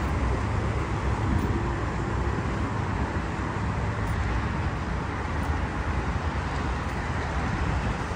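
Steady outdoor background noise: a low rumble with a hiss above it and no distinct events.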